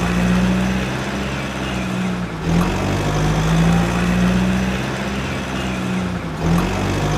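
Vehicle engine running at a steady idle, a low hum that repeats as a loop, restarting about every four seconds.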